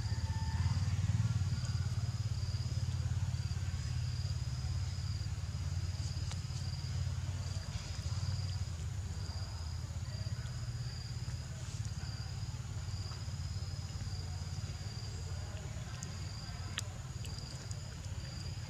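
Insects trilling in a high, pulsing chirp that starts and stops about once a second, over a steady low rumble, with a few faint clicks.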